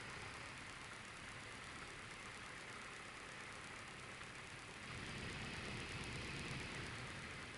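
Light aircraft's piston engine and propeller running at low taxi power, heard from inside the cockpit as a steady drone with hiss. It grows louder about five seconds in and eases back after about two seconds.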